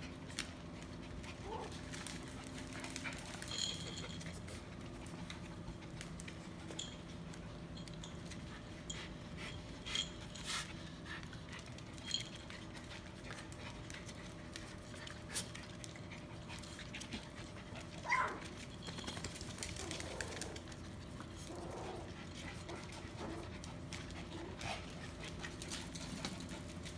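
Dogs panting, with scattered small clicks and a few short whines, the clearest about eighteen seconds in, over a steady low hum.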